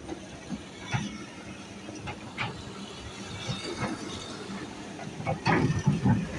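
Irregular sharp knocks and clanks, roughly one every second or so, over a steady low machine hum, with a louder, heavier cluster of knocks near the end.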